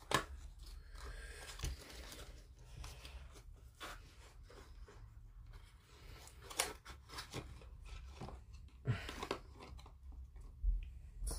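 Faint, scattered clicks and light taps of plastic model-kit parts and hobby tools being handled during gluing, one every second or two.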